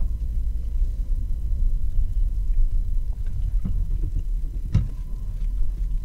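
2008 VW Rabbit's 2.5-litre five-cylinder engine running cold at low engine speed, heard as a steady low rumble. A few light clicks sound about four to five seconds in.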